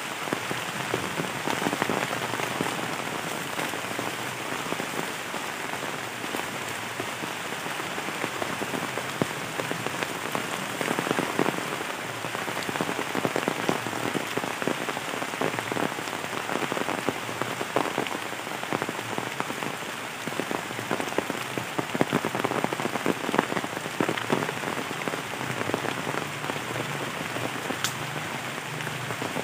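Heavy rain falling on trees and leaf-covered ground: a dense, steady hiss with many individual drop hits.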